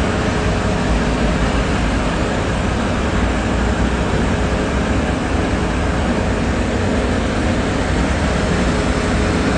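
Steady, even rumble of city street noise: traffic and an idling vehicle engine, heaviest in the low end, with a faint steady hum and no breaks.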